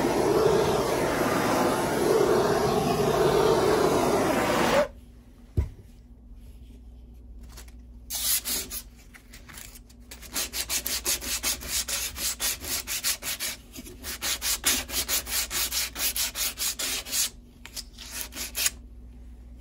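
Handheld gas torch burning steadily with its flame on a wooden axe handle, scorching the wood, then cut off suddenly about five seconds in; a single knock follows. After a pause comes hand sanding of the scorched handle with folded sandpaper: quick back-and-forth rubbing strokes, about three a second, in several runs with short breaks.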